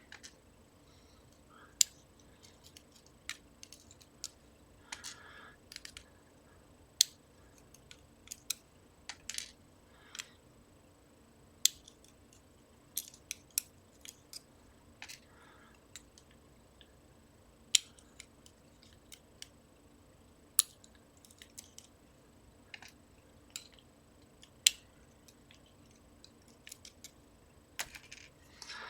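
Small metal lock parts being handled: irregular sharp clicks and light taps, some much louder than others, with brief soft rustles. These are the pins and trampoline-spool drivers of a disassembled Trioving lock being worked out and set down with small tools.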